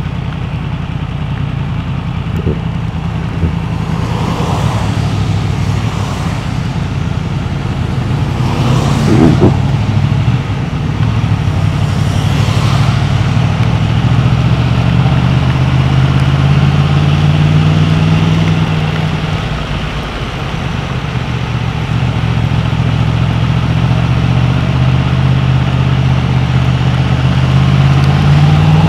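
Yamaha MT-10's crossplane inline-four, fitted with an Akrapovic exhaust, running at low revs in slow traffic. Its note rises and falls gently, with a brief louder rush of noise about nine seconds in. Near the end the revs climb as the bike accelerates.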